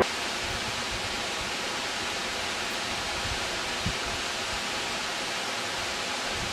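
Steady, even hiss with no voices, and a faint low knock about four seconds in.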